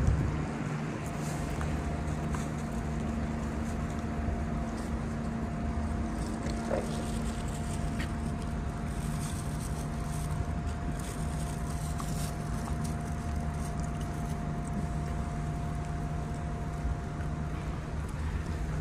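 City street traffic: vehicle engines running in a steady low hum. A thin steady whine starts about a second in and stops near the end.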